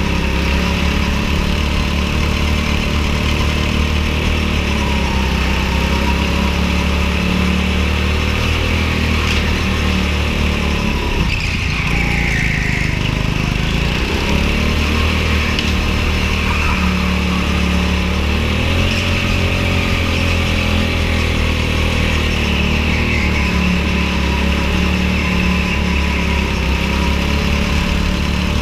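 Go-kart engine running hard, its buzzing pitch wavering; about eleven seconds in the revs drop sharply, then climb back over the next two seconds.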